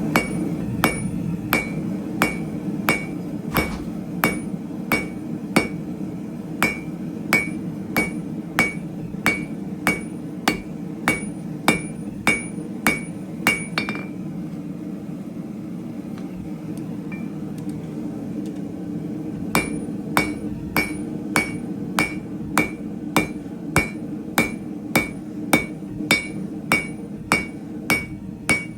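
Hand hammer striking hot square steel stock on an anvil in a steady rhythm of about one and a half blows a second, each with a short ring. The hammering stops for about five seconds in the middle, then starts again, over a steady low rumble.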